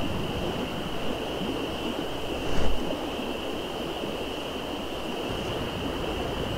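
Steady rushing of river water with a constant thin high-pitched drone over it. There is a single brief thump about two and a half seconds in.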